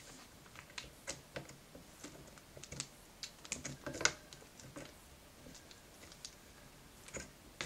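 Faint, irregular light clicks and taps of a Corsair Vengeance DDR3 RAM stick being lined up against a motherboard's plastic DIMM slot, with a slightly louder knock about four seconds in.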